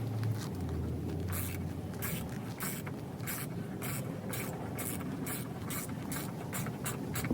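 Hand ratchet backing out a Jeep's body mount bolt: a quick run of rasping ratchet strokes, about three a second, getting faster toward the end as the bolt frees up.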